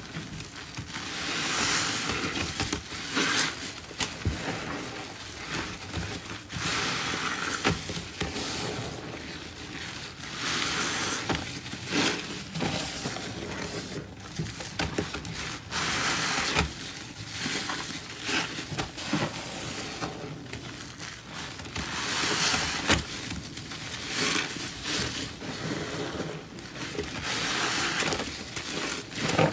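Wet sponges loaded with thick, foamy cleanser-and-grout paste, squeezed and kneaded by gloved hands against a stainless steel sink: wet squelching and crackling foam in repeated surges a second or two long.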